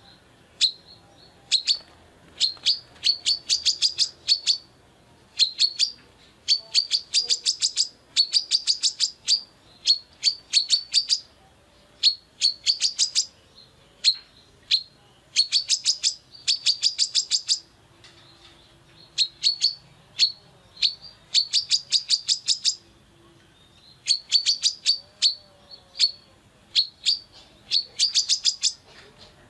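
Female brown-throated sunbird (kolibri kelapa) singing busily: rapid strings of sharp, high chirps in bursts of about a second, repeated with short pauses.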